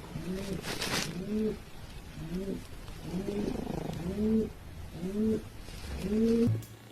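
An animal giving a run of about ten short cooing calls, each rising and falling in pitch, roughly two a second, with a brief hissing rustle about a second in.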